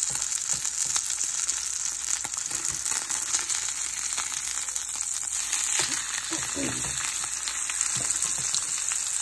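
Pork chop searing in olive oil in a cast-iron skillet: a steady sizzle with fine crackling throughout.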